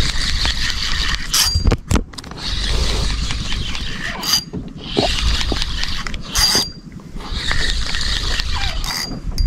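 Bison Squid 2500 spinning reel being cranked to retrieve a lure, a mechanical whirring in spurts of about two seconds with short pauses between.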